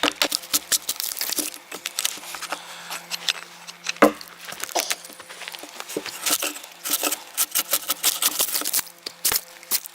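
Background music with a fast clicking percussion beat over a steady low tone, with one heavier thud about four seconds in.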